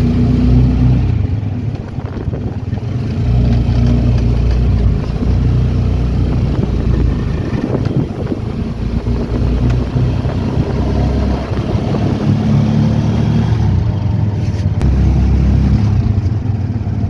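A vehicle's engine running on the move, a steady low rumble that dips briefly about two seconds in and swells again.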